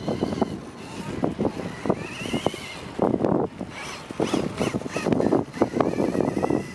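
Electric Kyosho Ultima 2WD RC buggy driving and turning on loose dirt: a motor and gear whine that rises and falls with the throttle over a steady crackle of tyres on the dirt.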